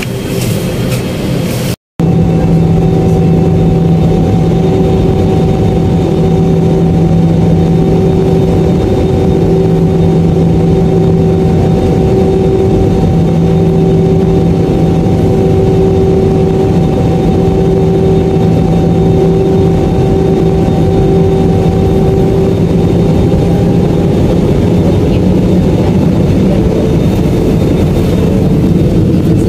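Jet airliner in cruise heard from inside the passenger cabin: a loud, steady engine drone and rush of air with a few constant hums. A short cut breaks it about two seconds in.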